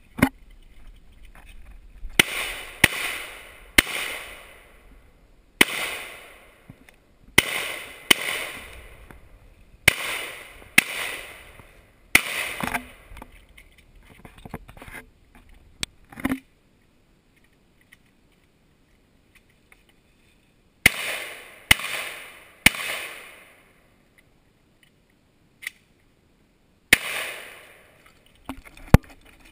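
Gunshots, about fourteen, mostly in quick strings of two or three about a second apart, each with a decaying ring or echo after it. There is a long pause in the middle before a final group of three and one last shot near the end.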